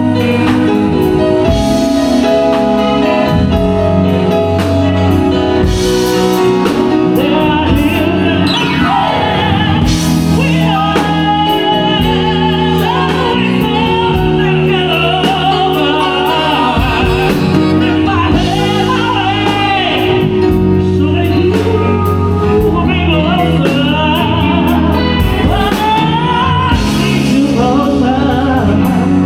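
A live band with a singer playing music at a sound check; a sung melody runs over steady bass notes.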